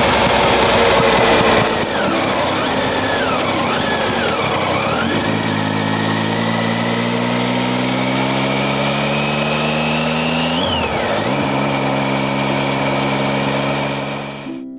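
Triumph Tiger 800XC's inline three-cylinder engine pulling as the bike rides along, under heavy wind rush on the microphone. The engine note climbs steadily, drops with a gear change about eleven seconds in, then climbs again.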